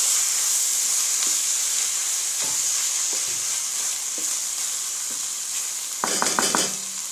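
Minced beef and kachnar buds sizzling in hot oil in an aluminium pan, the sizzle loudest at the start and slowly easing after a tablespoon of water has gone in. A wooden spatula stirs the mix, with faint knocks and a short rattle of scraping strokes against the pan about six seconds in.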